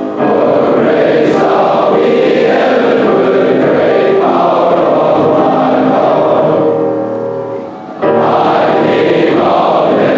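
Hundreds of schoolboys' voices singing together in a large chorus. The singing falls away at the end of a phrase and comes back in full after a short pause.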